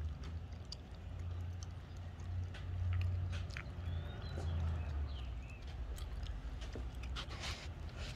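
Footsteps on a concrete sidewalk: irregular light clicks and scuffs, roughly one or two a second, over a low steady rumble.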